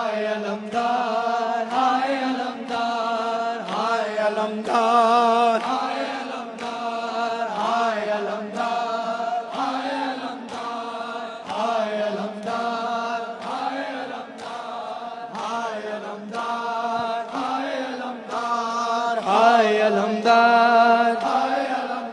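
A group of male mourners chanting a noha refrain in unison, repeated about once a second, with the dull beats of hands striking chests in time with it.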